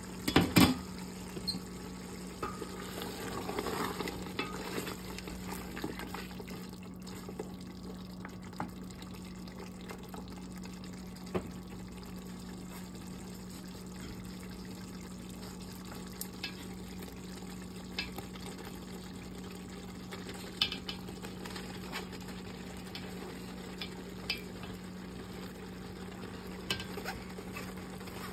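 A metal lid clatters against a stainless steel pot as it is lifted off about half a second in. Beef curry simmers in the pot with scattered pops and light clicks over a steady low hum.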